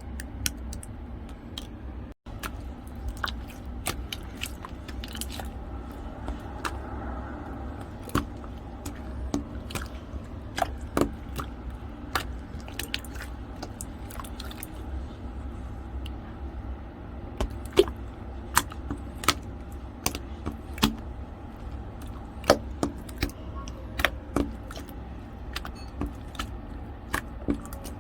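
Hands kneading and poking snowflake slime: irregular crisp clicks and crackles, a few each second at times, over a steady low hum.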